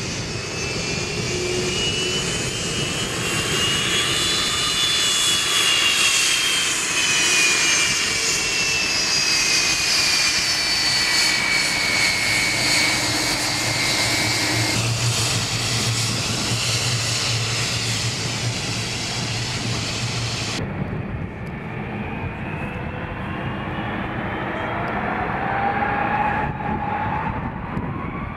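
Boeing 757-200 jet engines whining as the airliner taxis past, the whine gliding up and then down in pitch over a steady rush. After a sudden cut about two-thirds through, the engines are heard from farther off spooling up, a whine rising steadily in pitch as the takeoff roll begins.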